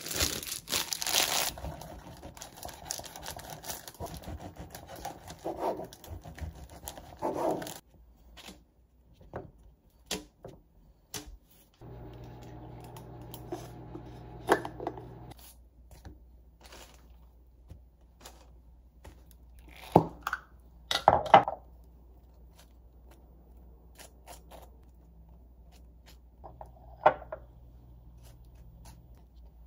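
Plastic bag around a loaf of bread crinkling and rustling as it is opened, for about eight seconds. Then scattered small clicks and knocks of kitchen handling, a brief low hum, and a few sharp clacks.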